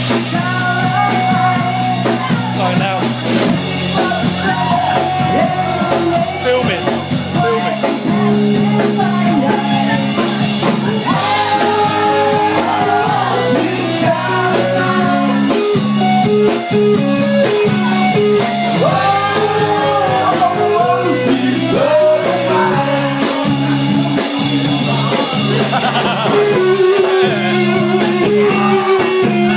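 Live rock band playing: electric guitar, bass and drums with a singer over them.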